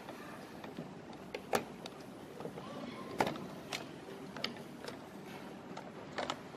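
Scattered sharp clicks and knocks of hard plastic and metal sprayer parts being handled and fitted by hand, about five in all, the loudest about three seconds in.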